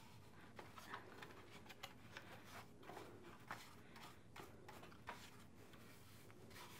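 Faint, irregular swishes and light ticks of a small bristle brush sweeping sanding grit off a freshly distressed, painted picture frame.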